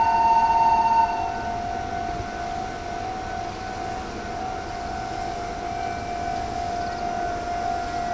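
Level-crossing warning alarms ringing without a break, two alarms at different pitches sounding together. The higher-pitched one stops about a second in, and the lower one keeps ringing.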